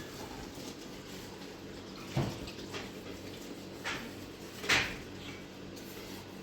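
Three short knocks over a steady low hum, the last one the loudest.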